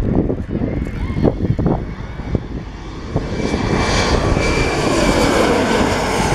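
Twin-turbofan Embraer E-Jet regional airliner passing low overhead on landing approach. Its engine noise swells from about three seconds in, with a steady high whine over the rush, and stays loud to the end.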